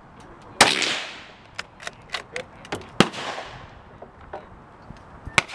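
Two shots from a Marlin 783 bolt-action rifle in .22 WMR, about two and a half seconds apart, each trailing off in an echo. Between them come a few light clicks as the bolt is worked. A shorter sharp crack comes near the end.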